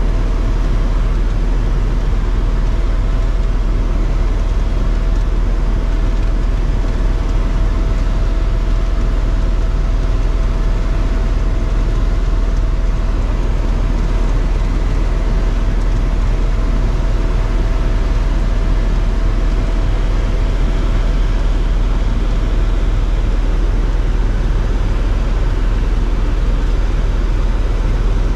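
Helicopter running in flight, heard from on board: a loud, steady drone heaviest in the low end. A faint steady whine fades out about three-quarters of the way through.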